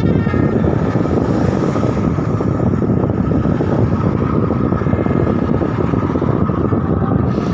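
Loud, steady road noise of heavy vehicles, mostly low engine and tyre sound.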